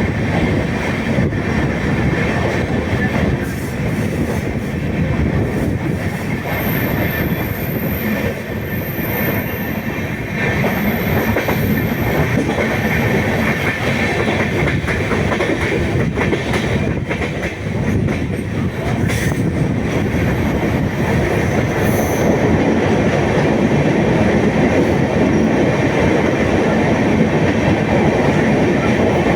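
Janshatabdi Express passenger train running on the track, heard from aboard: a steady, loud rumble and rattle of wheels on rails.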